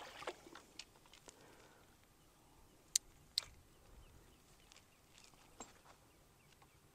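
Handling of a fishing rod and spinning reel: two sharp clicks about half a second apart, among faint ticks and rustles.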